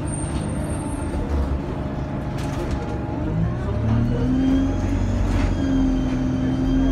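Interior of an Alexander Dennis Enviro200 single-decker bus: the engine and drivetrain rumble steadily, then about four seconds in it grows louder with a rising whine as the bus picks up speed.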